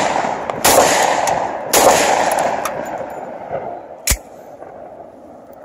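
Two shots from a 10mm Glock pistol about a second apart, each followed by a long echo that dies away over a couple of seconds. A single short, sharp click about four seconds in.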